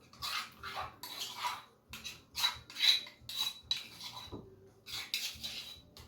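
A utensil scraping and knocking against a bowl in a run of short strokes, about two a second, with a light ringing clink on several of them, as avocado is worked by hand; a short lull comes a little after four seconds.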